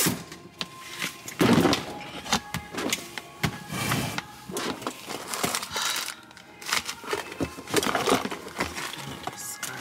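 Clothes and plastic bags rustling and shifting as a pile of stored belongings is dug through by hand, with scattered knocks and clicks.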